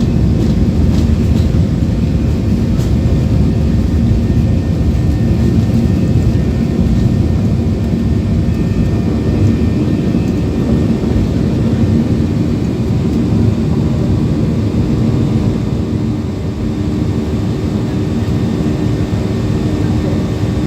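Inside the cabin of a Boeing 737-800: steady loud roar of its CFM56-7B jet engines and airflow, with a low hum underneath and no change in pitch.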